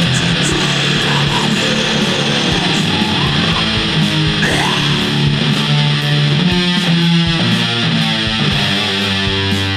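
Raw black metal music: heavily distorted electric guitars and bass playing a dense, continuous wall of sound, with frequent sharp drum hits throughout.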